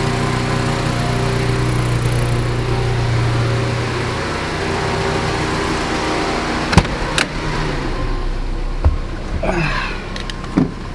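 Saab 90's engine idling hot on its freshly adjusted Stromberg carburettor, over a steady hiss. The engine note fades about four seconds in, then come two sharp clicks, a thump and a few short squeaks.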